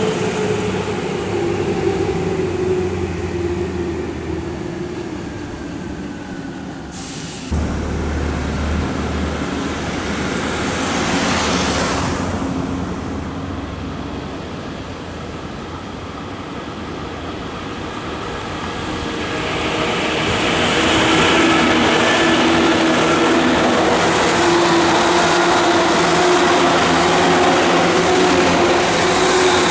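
Tokyu 8500 series electric train running, its traction motors giving a loud, multi-tone whine over wheel and rail noise. The motor tones slide down in pitch over the first several seconds. The sound changes abruptly about seven and a half seconds in, and from about twenty seconds the whine grows louder and stronger.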